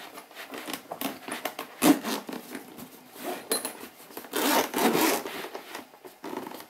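Zipper of a hard-shell camera-accessory carrying case being pulled open around its edge in several rasping strokes, with the hands rubbing on the case's fabric shell. The longest, loudest pull comes between about four and a half and five seconds in.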